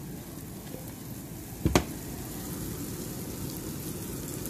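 A stick of butter melting and sizzling in a hot non-stick frying pan, a steady soft fizz. There is one sharp knock a little under two seconds in.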